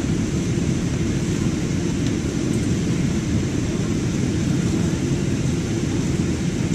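Jet airliner in flight: a steady, unbroken low rumble from the engines and airflow, with a fainter hiss above it.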